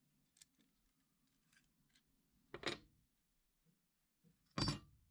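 Handling of a Japanese pull-saw blade and its metal clamp fittings as they are unscrewed: a few faint ticks, then two short scraping clatters about two seconds apart.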